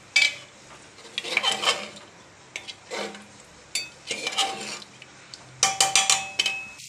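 Metal ladle scraping and knocking against the inside of a pressure cooker while stirring a watery chicken masala, ending in a quick run of ringing clinks.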